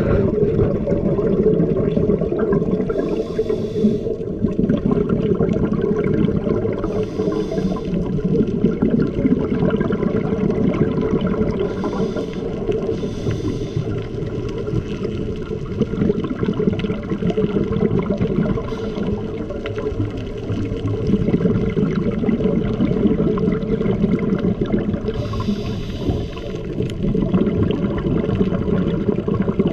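Underwater sound picked up by a camera moving through the sea: a steady low rumble with bubbling water. A short hiss comes every few seconds.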